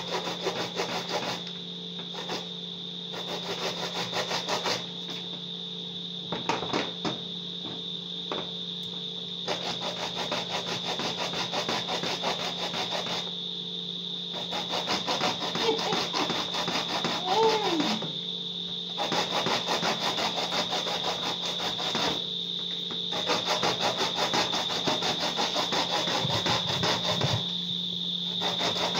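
Fresh corn cobs grated on a metal box grater into a bowl: runs of quick rasping strokes, broken by short pauses every few seconds as the cob is shifted on the grater.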